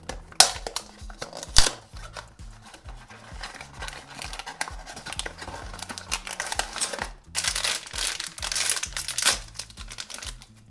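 A cardboard blind box being opened, its glued flap coming free with two sharp snaps near the start, then a foil bag crinkling as it is handled and torn open, loudest in the second half.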